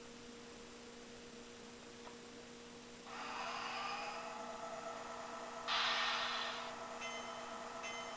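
Model train sound decoder (MRC 1662) playing diesel switcher sounds through a small speaker over a steady electrical hum. The diesel engine sound comes in about three seconds in, a burst of air hiss lasting about a second follows, and near the end the locomotive bell starts ringing in even strokes.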